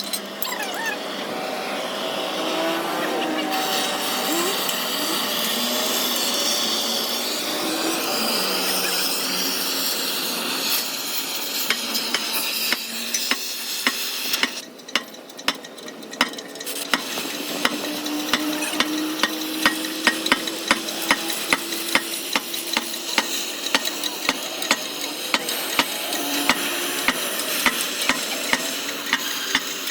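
Electric arc welding crackling and sizzling steadily, with a run of sharp clicks about two to three a second through the second half.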